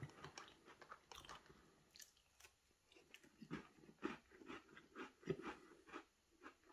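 Faint, irregular chewing of a soft chocolate cookie, close to the mouth.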